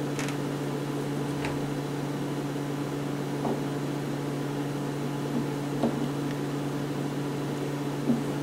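A steady low hum from a running fan or appliance, with a few faint light clicks as a cleaning rod and patch are handled.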